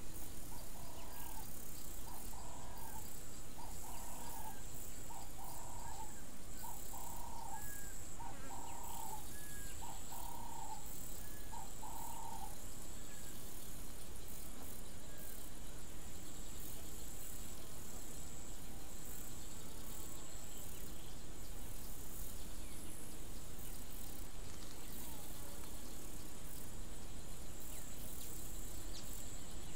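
Outdoor field ambience: a steady high-pitched insect trill over a soft hiss, with a bird's call note repeated eight times about every second and a half, stopping about 12 seconds in.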